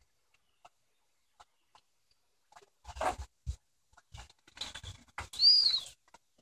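German Shepherds moving about on a wooden deck and at a plastic kiddie pool: scattered taps, knocks and small splashy sounds. A short, high squeak rises and falls near the end and is the loudest sound.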